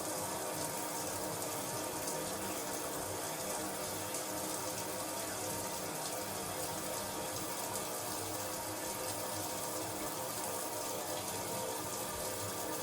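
Shower running: a steady, even rush of spraying water falling without a break.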